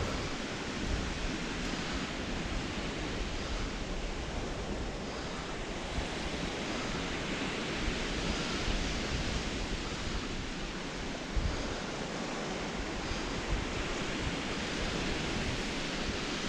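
Steady wash of sea waves on a sand-and-shingle beach, with wind buffeting the microphone in a low, uneven rumble.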